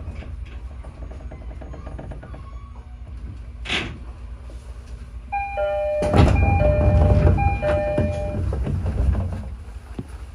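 205 series electric train running on the rails with a steady low rumble and a single click about a third of the way in. Past the middle a two-pitched warning tone sounds in on-and-off stretches while the running noise swells louder for a few seconds, then dies back near the end.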